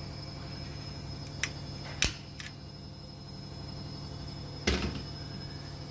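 A few sharp clicks about two seconds in and a louder knock near the end, over a steady low hum: handling noise around the water heater's pilot burner as a long lighter is used and then withdrawn.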